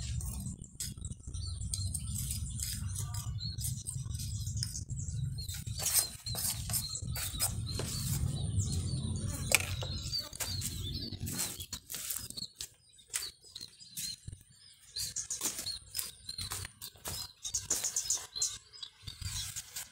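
Light scratching and clicking of a small tool and fingers working sand and gravel around a coconut bonsai's roots in a shallow pot, with small birds chirping. A low rumble underneath fades out about twelve seconds in.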